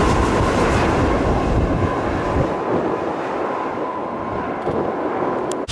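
Jet engine noise from a Boeing 757 on final approach, an even rush that fades as the airliner descends and moves away, with some wind on the microphone.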